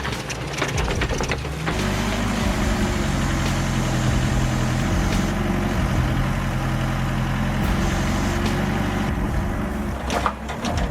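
A heavy machine's engine runs steadily. There are clattering knocks in the first second or two and again near the end.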